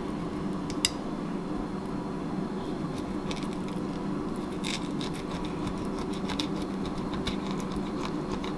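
Fillet knife slicing along a white crappie's back beside the dorsal fin, giving scattered soft clicks and scratches as the blade works through flesh and scales toward the rib bones. A steady low hum runs underneath.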